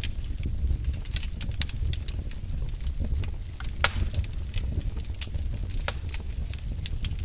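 Wood fire burning in a fireplace: a steady low rumble of the flames with irregular crackles and pops, one sharper crack about four seconds in.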